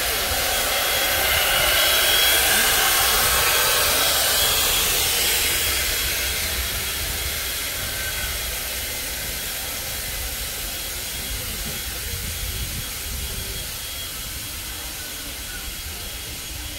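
Steady hiss of steam from steam locomotive No. 89 standing at rest, loudest in the first few seconds and fading as the locomotive falls behind, over a low rumble.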